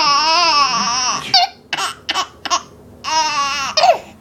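Baby laughing: a long, high, wavering squeal of laughter, short breathy gasps around two seconds in, then another long wavering laugh.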